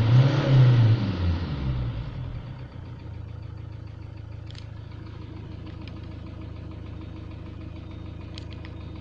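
Ford Transit common-rail diesel engine revved once and falling back to a steady idle by about three seconds in. The engine has a knock, and a cylinder balance test points to a leaking injector.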